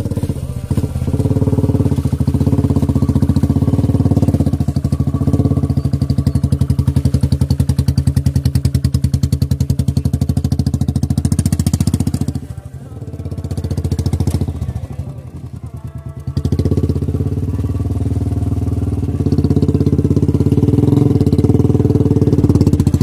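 Royal Enfield Classic 350's single-cylinder engine running under load as the motorcycle is ridden slowly through deep mud, in a steady rapid beat of firing pulses. The sound drops for a few seconds about halfway, then comes back up.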